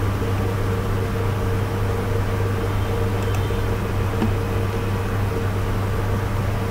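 Steady low electrical hum with a fainter higher tone and hiss, the background noise of the recording setup, with a couple of faint clicks in the middle.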